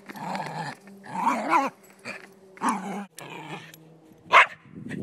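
Silky terrier barking and growling in a string of short outbursts while playing with a ball, with one sharp, loud bark near the end.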